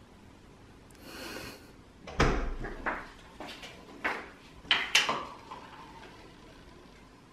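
Kitchen handling sounds: a short sliding rustle about a second in, then a string of knocks and clicks of things being handled on the counter, the loudest a thud about two seconds in.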